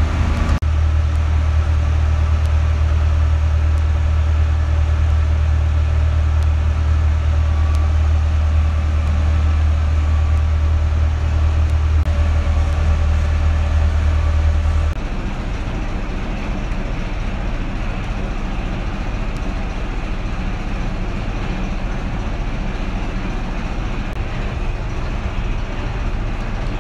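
Engine running with a steady low drone and a hiss above it; the drone drops to a lower level about fifteen seconds in.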